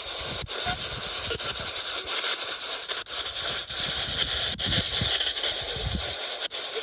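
Spirit box radio scanning through stations: a steady static hiss interrupted by short breaks as it jumps from frequency to frequency.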